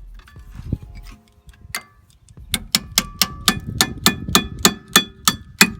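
Hand ratchet wrench clicking as it works a brake caliper bolt: after a quieter start, sharp metallic clicks with a brief ring come about three to four a second.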